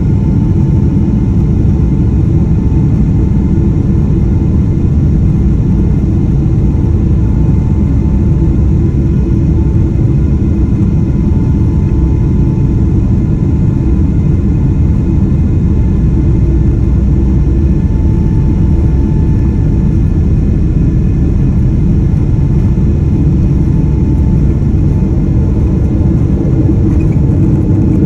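Boeing 777-300ER's GE90-115B turbofan engines heard inside the cabin as a loud, steady low rumble, with a faint steady whine above it, while the plane moves along the ground.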